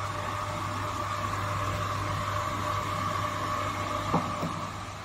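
Cold-room refrigeration equipment running: a steady mechanical hum with a faint steady whine over it. Two light knocks come about four seconds in.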